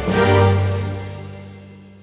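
Background music ending on a final chord that is struck just after the start and then fades away.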